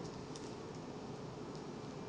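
Steady hum with a thin constant tone, and a few faint light clicks and rustles of handling.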